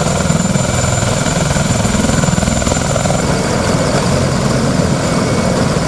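Sikorsky MH-53E Sea Dragon helicopter running on the ground, rotors turning, with a steady high turbine whine over the beat of the blades.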